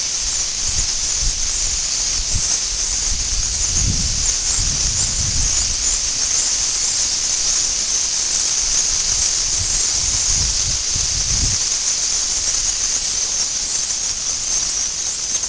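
A steady, high-pitched hiss from the recording with no speech. Low rumbles come in about four seconds in and again around ten to eleven seconds.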